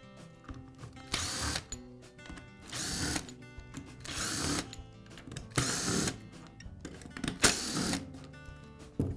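Power screwdriver running in five short bursts of about half a second each, backing out the screws that hold the drill's plastic housing halves together. Background music plays under it.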